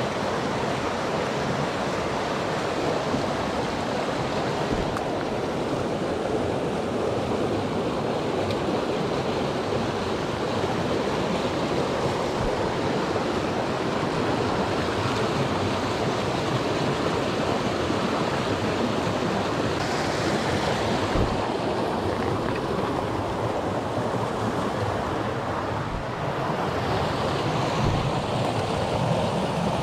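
Steady rushing of stream water.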